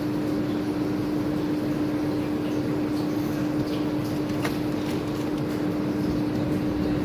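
Steady machine hum with one constant low tone, and a few faint light clicks.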